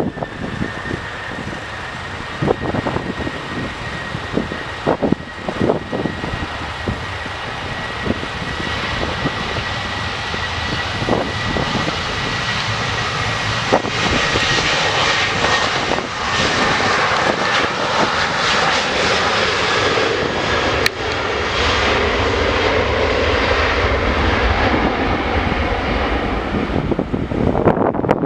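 Jet airliner engines running close by: a steady high whine over a heavy rush that grows louder about halfway through. Wind gusts on the microphone.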